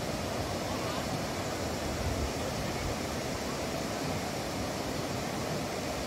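Steady rushing outdoor ambience, with a shifting low rumble of wind on the microphone.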